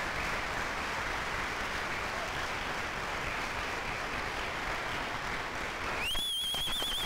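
Audience applauding steadily. About six seconds in, a high, wavering whistle starts and holds over the clapping.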